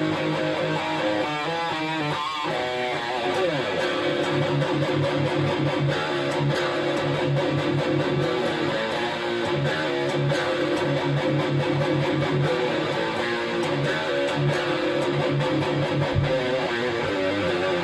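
Jackson JS22 DKA Dinky electric guitar played through a Crate Blue Voodoo 60 amp, recorded direct from the amp. It plays a riff of repeated low chugging notes mixed with higher lines.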